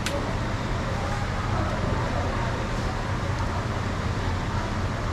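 Steady background din of traffic-like noise and low hum with faint distant voices, and a single sharp click right at the start.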